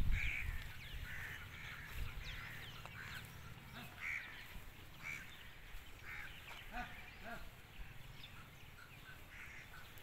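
Birds calling around the yard: many short, scattered calls repeating every second or so, with low thuds during the first second.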